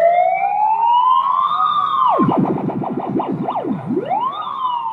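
Electronic siren wailing slowly up in pitch, then dropping sharply about two seconds in into a run of fast up-and-down yelps, before rising again and falling away in a slow wail.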